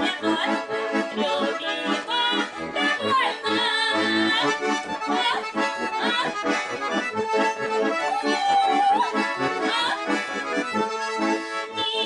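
Russian button accordions, a garmon and a bayan, playing a folk tune.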